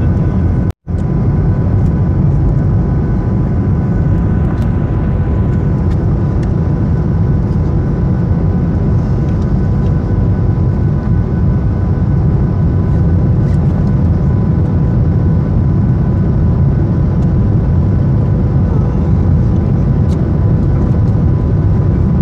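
Cabin noise of a Boeing 737-800 on approach, heard from a window seat over the wing: a loud, steady roar of its CFM56-7B engines and the airflow, with a few steady tones running through it. The sound cuts out for an instant about a second in.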